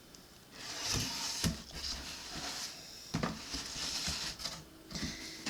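Cardboard shipping box being handled: rustling and scraping with a few dull knocks.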